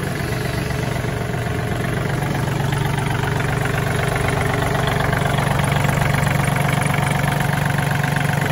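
John Deere 3036E compact tractor's three-cylinder diesel engine idling steadily.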